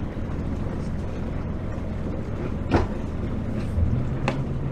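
Catamaran's inboard engine running steadily in gear at low speed, its note growing a little stronger about four seconds in. Two short knocks sound about a second and a half apart in the second half.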